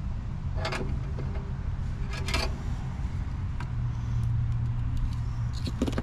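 A steady low mechanical hum, with two brief rustles of handling, one about a second in and one just after two seconds.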